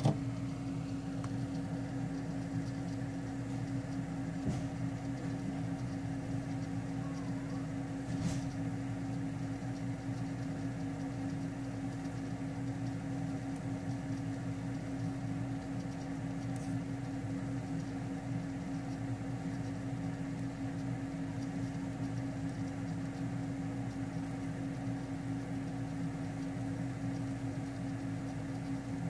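A steady mechanical hum at an even level, holding a constant low tone, with a faint click about eight seconds in.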